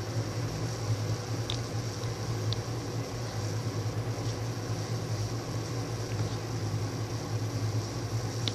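Steady low hum of a running household appliance, with a few faint light ticks.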